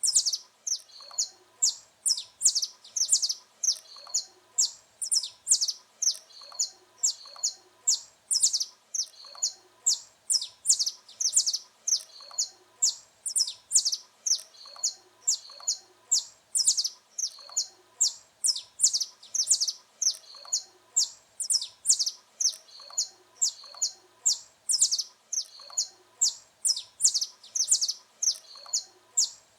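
Saffron finch (canário-da-terra) singing: high, sharp chirping notes repeated about twice a second without a break.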